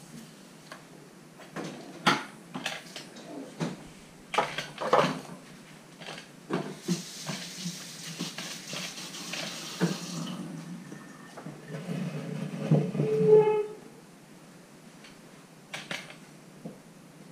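Kitchen handling sounds: scattered knocks and clatter of things being picked up and set down on a counter, with a few seconds of hissing water like a running sink tap in the middle and a short squeak about thirteen seconds in.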